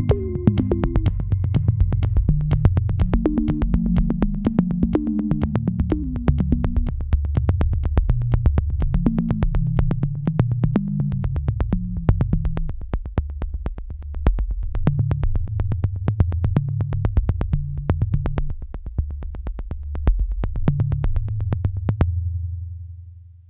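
Electronic music with a synthesizer bass line and a fast, steady beat; the beat stops near the end and a last low note fades out.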